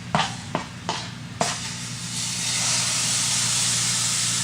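A few light knocks, then pancake batter starts sizzling in a hot pan about a second and a half in, building into a steady sizzle.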